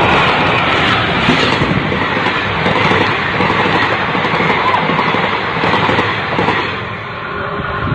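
Electric-locomotive-hauled passenger train passing close by at speed on a high-speed trial run, the locomotive and then the coaches rolling past as a loud, steady rush. The rush eases a little near the end.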